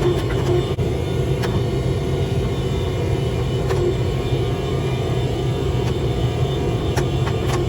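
Steady low mechanical rumble with a constant hum, broken by a few faint scattered clicks.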